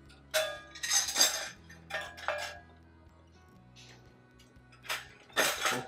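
Steel tire irons clanking against each other and the wheel rim in a few short bouts as a dirt-bike tire bead is levered on over a mousse bib. Background music with a steady bass line plays underneath.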